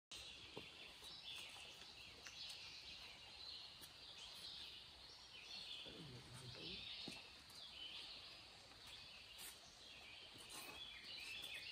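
Near silence: faint woodland ambience with scattered high chirping calls from birds or insects.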